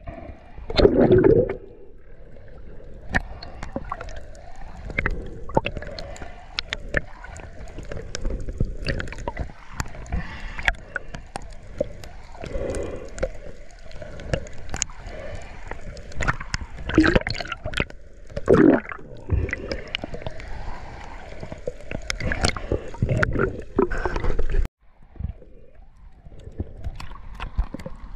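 Water gurgling and sloshing around a camera at or below the surface, broken by irregular splashes and knocks. The loudest bursts come about a second in and twice more past the middle, and the sound cuts out abruptly near the end.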